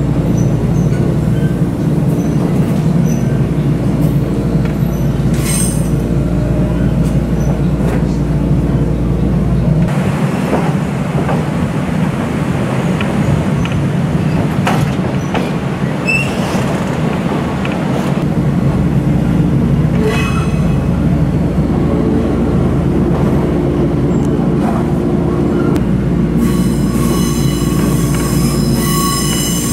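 Electric train car running on the Toyama Chiho Railway line, heard from inside the car: steady motor and wheel rumble. About ten seconds in the deep rumble drops away for some eight seconds while the train crosses a bridge over a river. Near the end a high, ringing wheel squeal sets in, typical of wheel flanges grinding on a curve.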